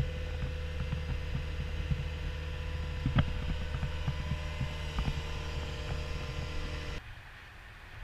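Cat 236D skid steer loader's diesel engine running steadily, heard from inside the cab, with a few light knocks. About seven seconds in the sound drops abruptly to a much quieter, more distant engine sound.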